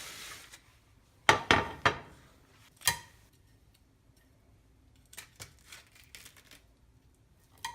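Kitchen utensils handling baked chicken wings on cookware. A brief scrape, then a cluster of sharp clinks and knocks about a second and a half in, one more at about three seconds, and lighter taps later on.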